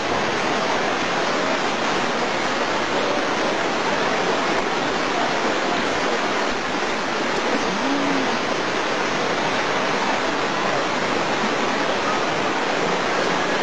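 Fast-flowing floodwater rushing across a road, a loud, steady rushing noise.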